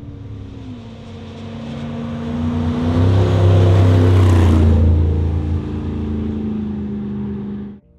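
Off-road race car engine approaching and passing by at speed, loudest about halfway through with a rush of tyre and wind noise, its note falling as it goes past. The sound cuts off suddenly near the end.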